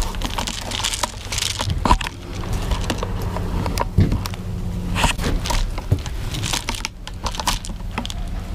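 Irregular crunching and rustling with scattered sharp clicks, close to the microphone, over a steady low hum.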